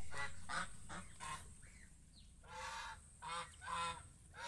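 A flock of domestic geese honking: a run of short honks, one after another, with one longer honk about halfway through.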